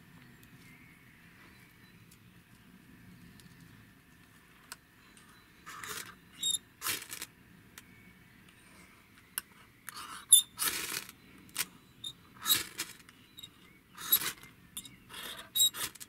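A ferro rod scraped with the spine of a Ganzo multitool's saw in short, sharp rasping strokes to throw sparks. The strokes start about six seconds in and come about ten times, quicker toward the end. The sparks are not going where they are aimed, and the striker is not the best.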